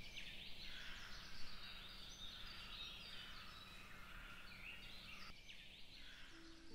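A quiet chorus of wild songbirds, many short chirps and whistled phrases overlapping, over a low steady hum. A soft sustained musical note comes in near the end.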